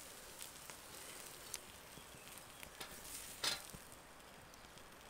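Faint sizzling of freshly grilled sausages, with scattered small clicks and one sharper clack about three and a half seconds in as another sausage is set into a steel camp pot.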